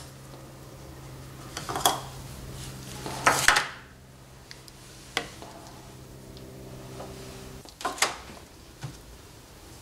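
Small metal paint-style cans of tank sealer being handled on a workbench: a handful of separate metallic clinks and knocks as a lid is pried off and set down and a can is tipped to pour, with the heaviest clatter about three and a half seconds in. A low steady hum runs underneath and stops near the end.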